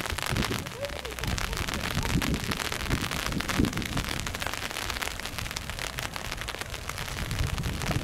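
Narrow-gauge steam locomotive moving slowly toward the platform: a steady crackling hiss with irregular low rumbles.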